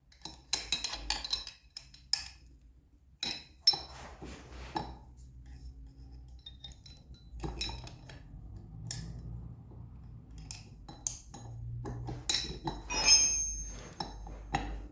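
Metal clinking and knocking as a spanner works the bolts of a flywheel puller being snugged onto a Yamaha DT125R's flywheel: irregular sharp clicks with short bright ringing, scattered throughout.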